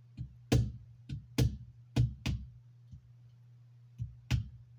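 Sharp metallic taps of a screwdriver handle striking a hex key used as a makeshift drift, driving a tight pin out of a 1911 pistol frame. About five taps in the first half, a pause, then two more near the end.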